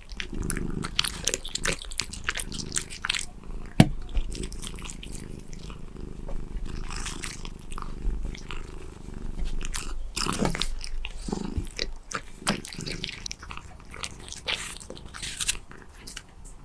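A silver shaded cat eating close to the microphone: repeated bites and crunchy chewing, with a low purr underneath in the first few seconds. A single sharp click about four seconds in is the loudest sound.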